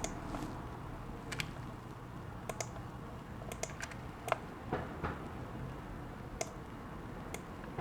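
About a dozen sharp, irregular clicks of a computer keyboard and mouse being worked, some in quick pairs, over a faint low steady hum.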